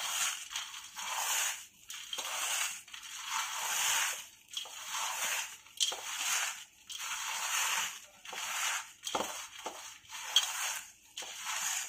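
Fried edible gum (dink, gond) being crushed into crumbs: crisp crunching strokes, about one a second.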